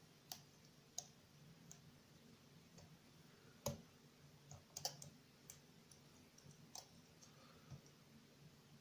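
Faint, irregular metallic clicks and ticks of a lock pick and tension tool working inside a Mindy padlock's keyway, about a dozen in all, the loudest a little under four and about five seconds in.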